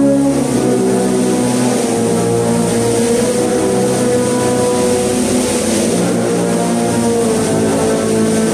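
Brass band playing a slow funeral march in long, held chords, with the notes changing every few seconds over a steady hiss of noise.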